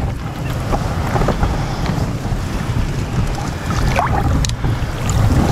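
Shallow muddy swamp water sloshing and splashing as people wade and work through it, under a steady rumble of wind on the microphone.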